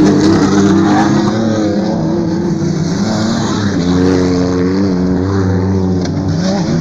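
Off-road race trucks' engines revving as they pass on a dirt track, several engines heard at once, rising and falling in pitch. Loudest at the start as a truck passes close, with another engine climbing in revs about four seconds in.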